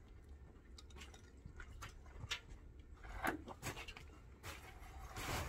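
Footsteps crunching in packed snow, with scattered light knocks and a short rustle near the end.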